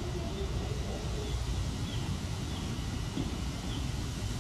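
Outdoor background: a steady low rumble with faint, short, high chirps repeating about once a second.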